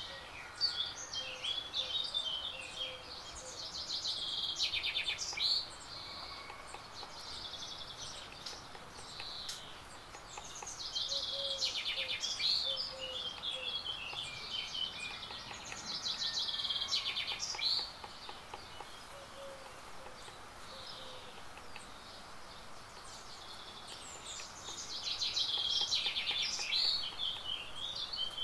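A songbird singing high, fast warbling phrases of two to three seconds each, repeated six times with short pauses between, over a steady outdoor background hiss.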